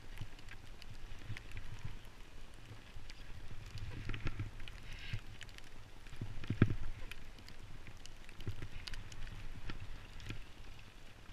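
Skis sliding and turning on snow, heard from a camera worn by the skier: an uneven scraping swish over a low wind rumble, with many small clicks and one louder knock a little past the middle.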